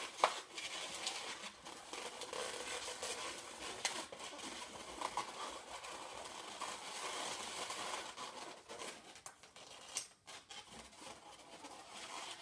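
Inflated latex twisting balloons rubbing against each other and against the hands as they are twisted and worked together, with a few sharp ticks along the way.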